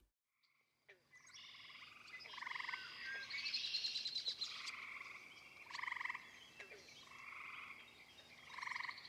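Chorus of tree frogs calling: many overlapping pulsed, trilling calls. They begin about a second in and swell louder about three times.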